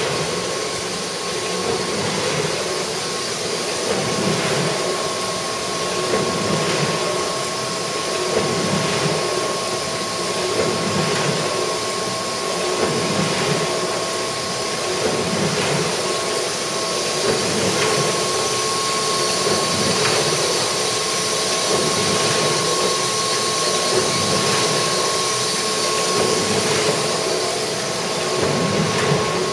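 Johannisberg 104 cylinder die-cutting press running and feeding sheets: a steady mechanical hum with a constant whine and a regular low churning cycle about every second and a half.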